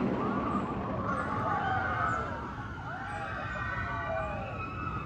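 Riders on a wooden roller coaster screaming, many overlapping rising-and-falling wails, over a steady rumble.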